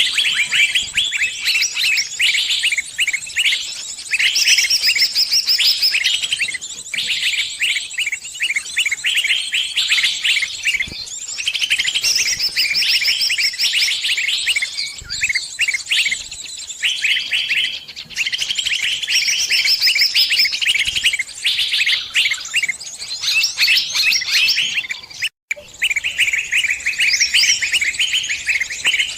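Sunbirds (the birds called kolibri in Indonesia) giving rapid, high chirping and trilled calls almost without pause, with a brief break near the end.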